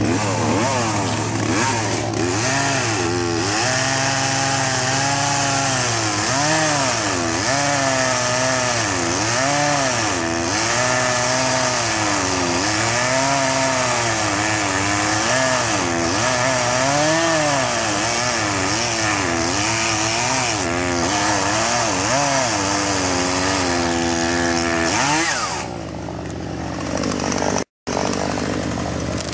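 Gasoline chainsaw cutting into a large tree trunk at high revs, its engine pitch rising and falling over and over as the cut loads and frees it. About twenty-five seconds in, the throttle is let off and it drops to a quieter, lower running; it cuts out for a split second near the end.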